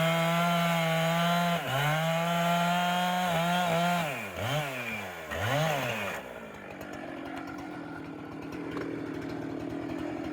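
Chainsaw running at high revs with a steady pitch, then dipping sharply and climbing back a few times. About six seconds in it drops to a quieter, lower sound.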